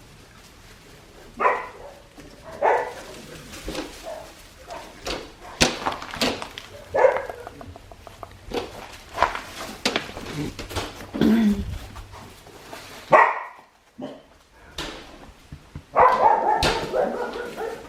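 Four-week-old Australian Shepherd puppies barking and yipping in short, scattered bursts, with a denser spell near the end, and a few sharp clicks in between.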